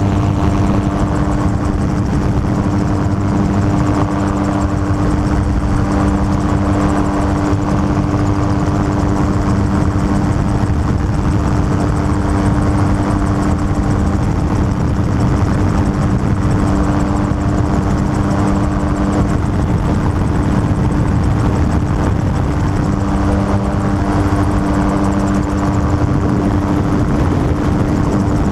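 Gyrocopter in cruise flight, heard from its open cockpit: the engine and pusher propeller run at a steady pitch. A steady hum sits over a dense rush of noise, with a second, lower tone that fades in and out.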